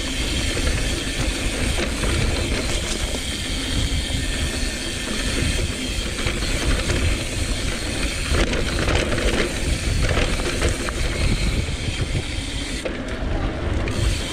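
Mountain bike descending a dry dirt singletrack: a steady rush of tyre noise on packed dirt, the bike rattling over the bumps, and wind rumbling on the rider's camera microphone.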